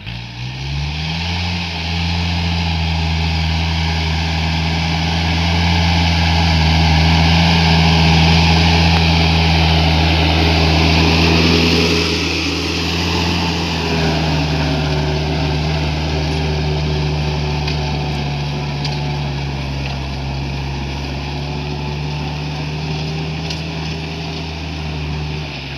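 VST Shakti MT 932 tractor's diesel engine revving up in the first second or two, then running steadily, as when pulling a plough. Its pitch dips slightly about halfway through.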